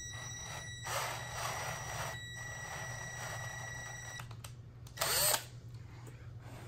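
Cordless drill with a paddle bit running at speed, its motor whining steadily as the bit cuts a shallow countersink into a fiberglass rifle stock; it stops about four seconds in. A brief rub follows about a second later.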